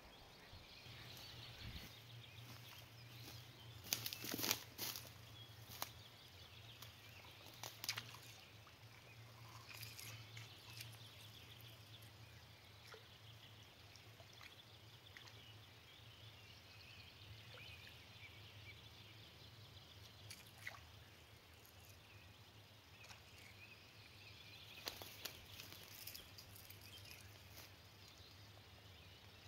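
Faint dawn ambience: distant songbirds twittering over a low steady hum, broken by a few brief sharp knocks or splashes about four, eight and twenty-five seconds in.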